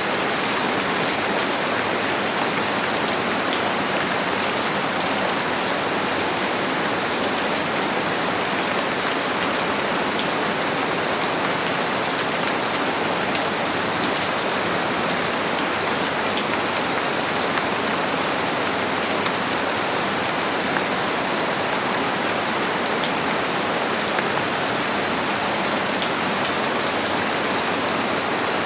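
Steady heavy rain falling on a surface, a dense even hiss dotted with the ticks of single drops.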